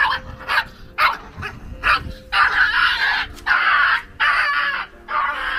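A small stray puppy giving a few short, sharp barks, then about four long, high-pitched yelps as it is grabbed and wrapped in a cloth: a frightened, defensive dog that has been biting its rescuers.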